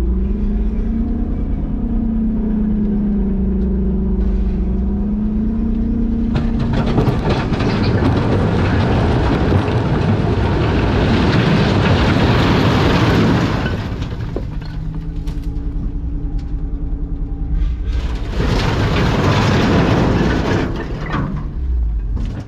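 Allis-Chalmers 655 track loader running, its engine steady with a slightly wavering pitch at first, then working hard in two long loud, noisy spells with a quieter stretch of engine between them.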